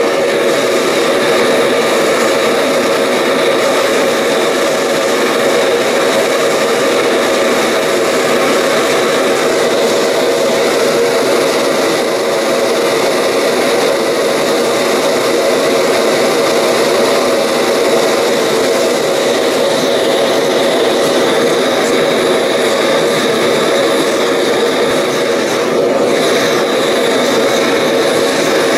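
Sievert propane torch burning into a thermalite-block gas forge, a loud, steady rush of flame that holds even throughout. The forge is at working heat, bringing a steel file to red heat for annealing.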